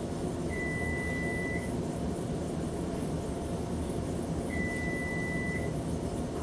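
Electronic oven timer beeping: two long, steady, high beeps, each about a second long, about four seconds apart, over a steady low background hum.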